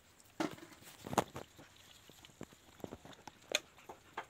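Puppies lapping milk from a flimsy plastic tray: an irregular scatter of small wet clicks and taps, a few of them louder.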